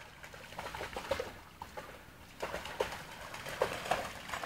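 A dog wading and splashing through a shallow stream: faint sloshing of water with short plopping and gurgling blips.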